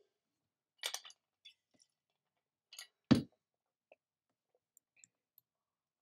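A few short, sharp clicks from a computer mouse and keyboard, spread out over several seconds; the loudest comes about three seconds in.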